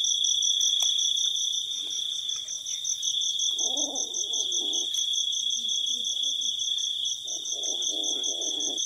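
Night crickets trilling steadily, with a high pulsing chirp repeating about five times a second. Twice there is a second or so of low, muffled rustling.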